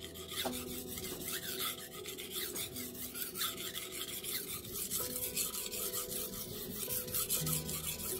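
Kitchen knife blade being sharpened on a wet whetstone, a rapid, even back-and-forth scraping of steel on stone.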